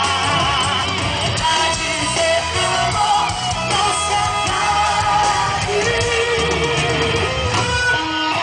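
Live band playing amplified rock-style music, with electric guitars and a voice singing.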